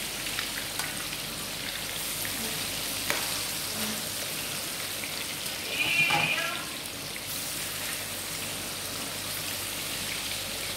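Fish pieces deep-frying in hot oil in a wok: a steady sizzle with small crackles, while a slotted spoon turns the fish. It briefly gets louder about halfway through.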